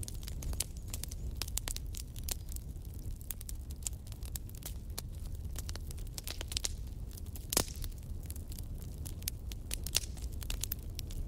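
Wood logs burning in a fireplace, crackling with frequent sharp snaps and pops over a low steady rumble of the flames, with one louder pop about seven and a half seconds in.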